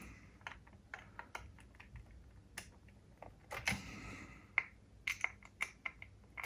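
Irregular light clicks and taps of small parts being handled on the opened cassette deck transport, coming more often in the second half.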